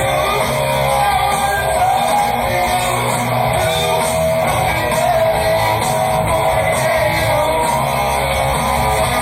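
Live heavy rock band playing an instrumental passage, with electric guitar to the fore over bass and drums.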